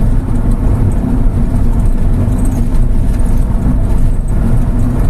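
Volkswagen Gol car cruising steadily at about 100 km/h: steady engine and road noise.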